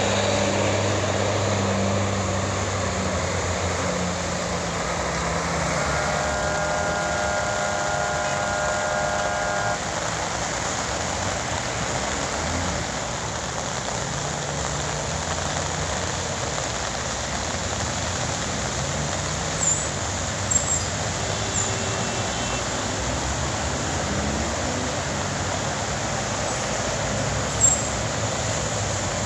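Steady traffic noise from a wet city avenue: the hiss of tyres and engines of passing cars and trucks. About six seconds in, a steady tone with several pitches holds for about four seconds.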